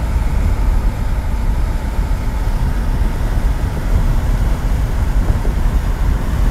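Road and wind noise of a moving car: a steady, loud low rumble.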